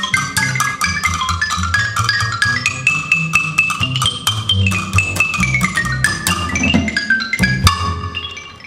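Ragtime trio playing a Charleston: xylophone playing fast runs of notes over plucked upright bass and a small drum kit. In the middle the xylophone rolls on higher notes, and a sharp accent lands near the end.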